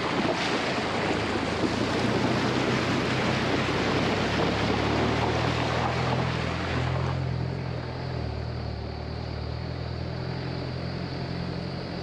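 4WD wading through a shallow creek crossing: water splashing and rushing around the wheels over the engine's steady low running. The splashing dies away about seven seconds in, leaving the engine running.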